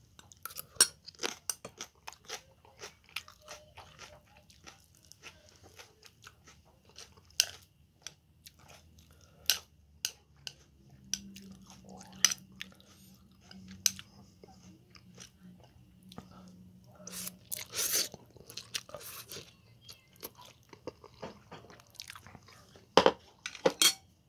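Close-up eating sounds: a person chewing spicy stir-fried instant noodles, with irregular clicks of metal chopsticks against the bowl. There are a few louder knocks near the end.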